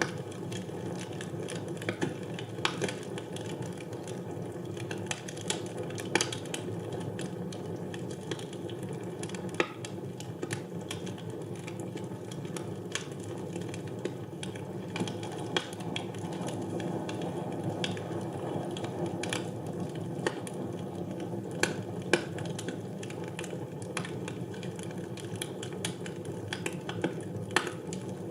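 Wood fire burning in a fireplace: a steady low rush with irregular sharp crackles and pops, a few of them louder.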